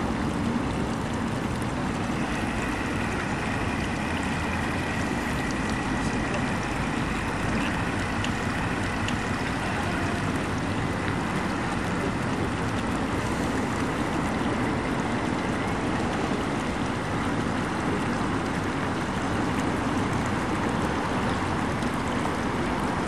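Steady rushing outdoor noise of wind and rippling pond water, with a faint, thin, steady high whine from about two seconds in until about halfway through.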